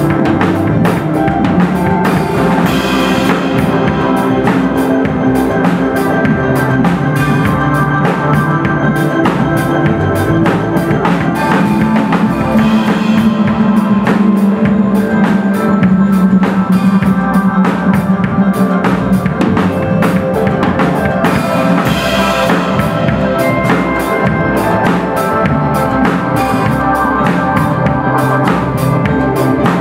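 Music with a steady drum beat over sustained chords.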